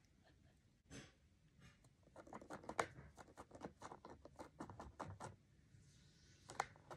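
Soft crinkling and crackling of a plastic treat bag as a cat paws at it and licks at it: a quick run of small crackles through the middle, with a single louder crackle about a second in and another near the end.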